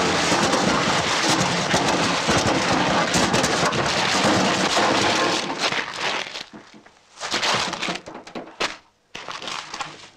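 A GAZ-M20 Pobeda car crashing down into a ravine: about five seconds of continuous loud crashing and crunching of metal, then scattered separate cracks and clatter as the wreck comes to rest.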